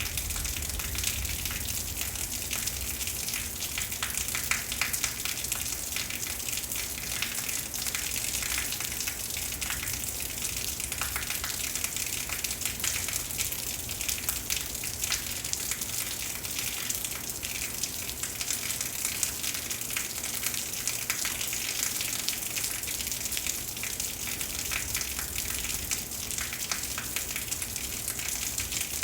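Heavy rain in a thunderstorm, falling steadily as a dense hiss of countless drops.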